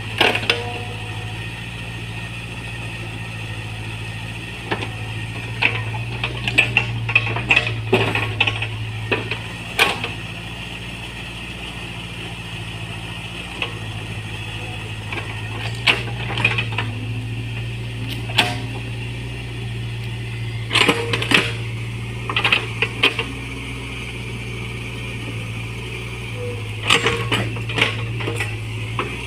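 Mini excavator's diesel engine running steadily, with bursts of clattering knocks and clanks from the working arm and bucket as it digs, several times over.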